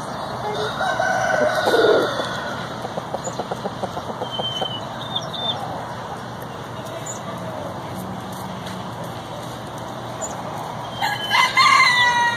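Rooster crowing twice: a crow with a falling end about half a second in, and a louder, longer crow near the end. Short quick clucks come in a run between them.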